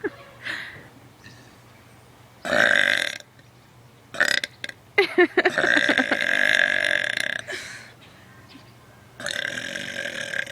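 A woman belching several times: a short belch about two and a half seconds in, a few short choppy ones, then a long drawn-out belch of about two and a half seconds, and another belch near the end.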